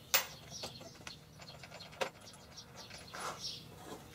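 A few sharp metallic clinks of a wrench and bolt hardware being handled and set down on a wooden board, the loudest just after the start. Birds chirp faintly in the background.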